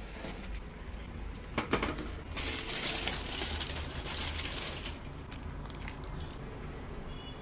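Aluminium foil crinkling as a foil-covered baking tray is taken from the oven and the foil cover is peeled back, with a few sharp metallic clicks about a second and a half in.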